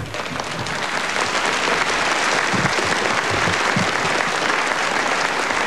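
Theatre audience applauding, swelling over the first second and then holding steady.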